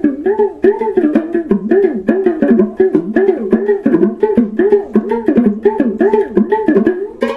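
Background music: a plucked-string melody of quick repeated notes that slide up and down in pitch, over a steady low drone.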